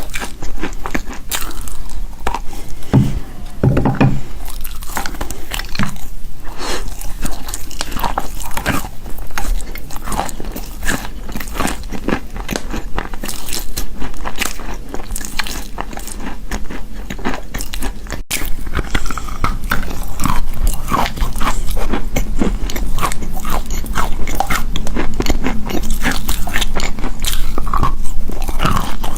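Wet chalk being bitten and chewed close to the microphone: a continuous run of dense, crackling crunches, over a steady low hum.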